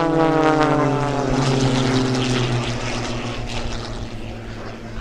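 Single-engine aerobatic propeller plane passing low: the drone of its engine and propeller falls in pitch as it goes by, then grows quieter as it flies away.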